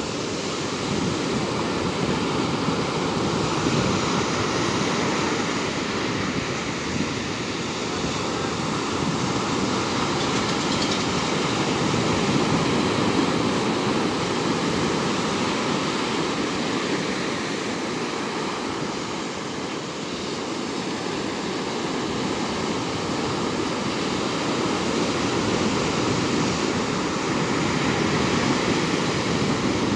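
Ocean surf breaking and washing up the beach: a steady rushing noise that swells and eases every few seconds.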